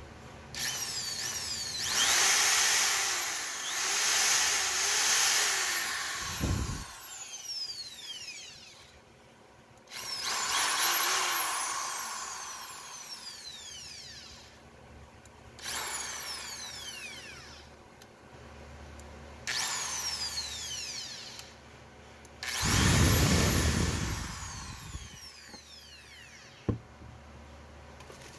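INGCO ED4508 450 W corded electric drill running with an empty chuck in five short bursts on its variable-speed trigger, the motor whine wavering in pitch with trigger pressure and winding down each time the trigger is released. A low thump about six and a half seconds in.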